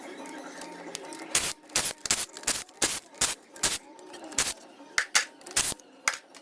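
Hand tools and metal engine parts clicking and clanking during an engine teardown: a quick, irregular run of sharp knocks, about two a second, starting a second or so in, over faint background music.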